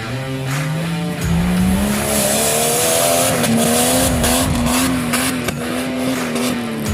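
Off-road 4x4 engine revving up, its pitch rising over the first couple of seconds and then held high at full throttle, falling away near the end.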